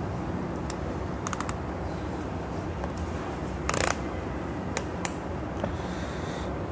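Small metal clicks and handling noises as a grating fastening disc is fitted onto a steel stud: a quick run of clicks, then one short, louder rasp about halfway, then a couple of single clicks. A steady low hum runs underneath.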